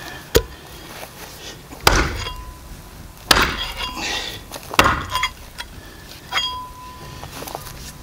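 Heavy axe chopping into a pig's head on a wooden stump, cutting at the lower jaw. About five sharp cracking blows come roughly a second and a half apart, some with a short metallic ring.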